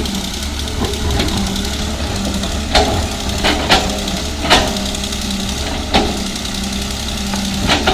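A 330 excavator's diesel engine running steadily, with six short, sharp clanks spread through the middle and end.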